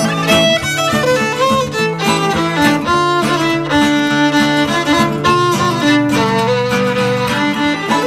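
Fiddle playing an instrumental break of quick melodic runs over steady strummed acoustic guitar, in an old-time country song.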